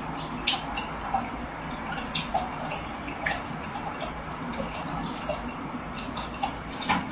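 Light splashing and dripping of aquarium water as a cat paws at the surface, with scattered sharp ticks over a steady low hum.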